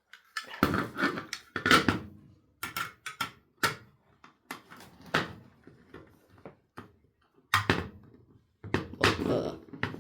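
Hard drive being worked on by hand, its metal cover and internal parts being pried at: irregular clicks, knocks and scrapes, loudest about two seconds in and again near the end.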